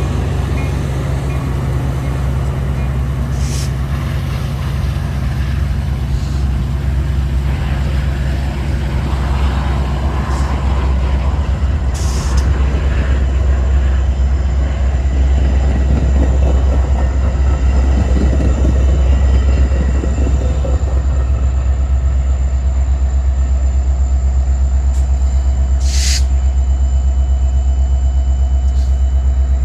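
Metra diesel commuter train running at the platform: a steady low engine rumble, with a few sharp clicks and thin steady high tones setting in about two thirds of the way through.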